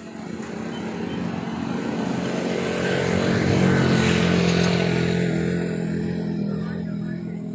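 A motor vehicle driving past: its engine grows louder to a peak about halfway through, then fades away.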